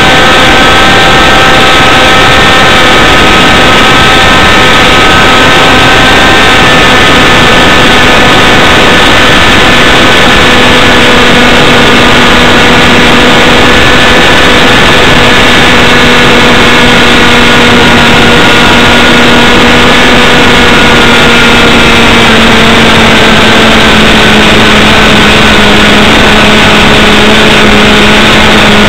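Single-cylinder model aircraft engine running hard in flight, heard very close and loud from just behind it, a steady buzzing note over wind rush. Its pitch sinks slowly over the last several seconds.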